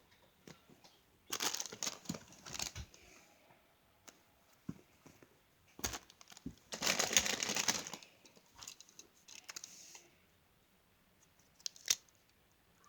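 Crinkly plastic being handled and rustled close to the microphone, in two main bursts about a second and a half in and around seven seconds, with a few sharp clicks in between and near the end.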